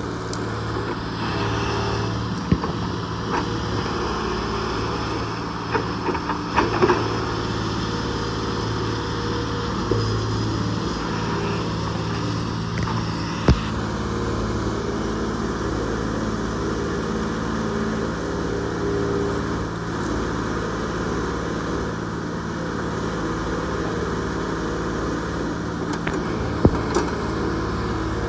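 Case 125B tracked excavator's diesel engine running steadily as the machine digs into a pile of tree stumps and brush, with sharp cracks and snaps now and then from branches and roots breaking under the bucket.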